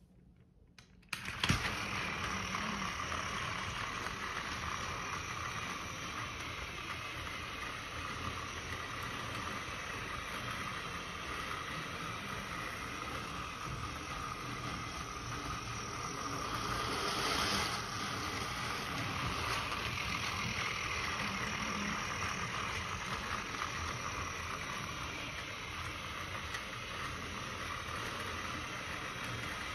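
Plarail C58 battery toy steam locomotive switched on with a click about a second and a half in, then its small electric motor and gearbox whirring steadily as the train runs around plastic track, growing a little louder about halfway through.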